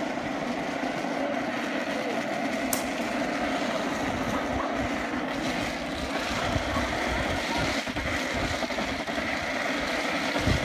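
A steady droning hum, with low rumbling buffets that come and go in the second half and one sharp click about three seconds in.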